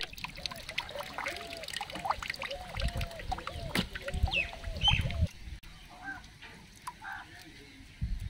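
Radishes being swished and rubbed clean in a basin of water, with splashes and sloshing loudest about three to five seconds in. Over it, for the first five seconds, a quick run of short squawking calls repeats about three times a second, then stops.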